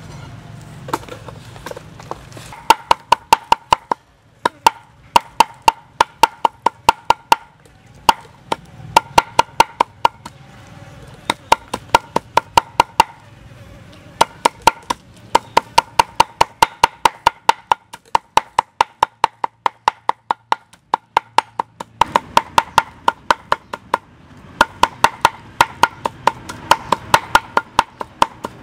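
Knife chopping raw fish on a thick round wooden chopping block, mincing it: rapid knocks about four a second in runs of a few seconds with short pauses, each knock ringing with a clear tone.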